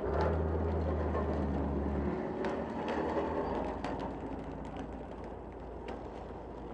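Low, steady engine hum that drops away about two seconds in, with a few scattered knocks.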